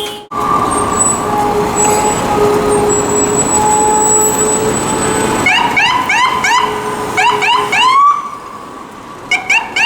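City street traffic, then from about five and a half seconds in a rapid series of short rising electronic chirps, about three or four a second, from an emergency vehicle's siren in its fast yelp mode. The chirps break off for a moment and briefly return near the end.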